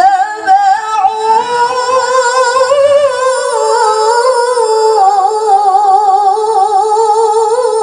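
A woman's voice chanting a melodic Qur'an recitation into a handheld microphone, drawing out one long ornamented phrase with a wavering vibrato; the pitch steps down about five seconds in.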